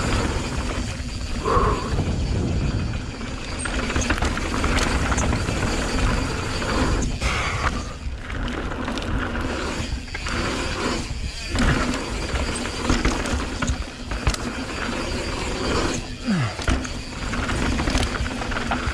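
Mountain bike descending a rough dirt and gravel trail: tyres running over loose stones, the chain and frame rattling over bumps, and the rear freehub clicking as the rider coasts.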